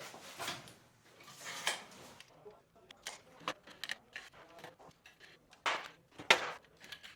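Scattered light knocks and clicks, with the loudest pair of knocks near the end.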